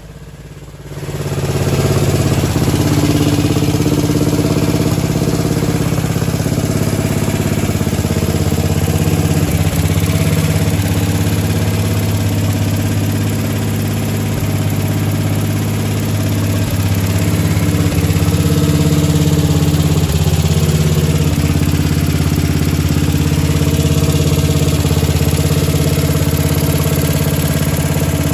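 1999 DR brush mower's engine idling steadily while it warms up, coming in about a second in.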